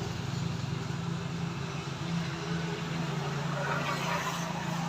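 A steady low hum of an engine running.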